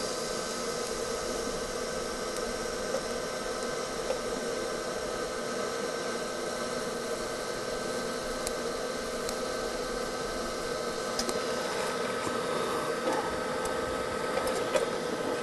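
TIG welding arc burning on a thin steel car body panel while a trim hole is filled with filler rod: an even hiss with a faint steady hum, and a few light ticks and crackles in the second half.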